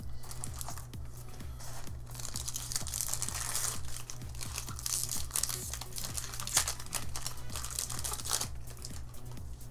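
Foil wrapper of a Pokémon booster pack being crinkled and torn open by hand, over background music.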